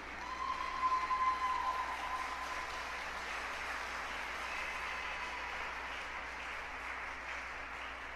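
Audience applauding as the waltz music ends. The music's last held high note fades out in the first two seconds.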